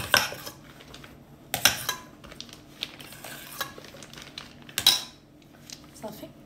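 A utensil scraping and knocking against a stainless steel mixing bowl as whipped cream is scooped out into a piping bag, with sharper clanks at the start, about a second and a half in, and near five seconds.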